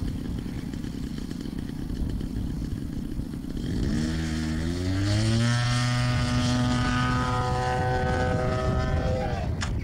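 A large RC aerobatic model airplane's engine idling with a low rumble, then opened up about four seconds in for the takeoff run: its pitch rises and holds steady at high power as the plane climbs away, dipping slightly near the end.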